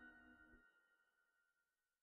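Near silence, with faint held tones dying away.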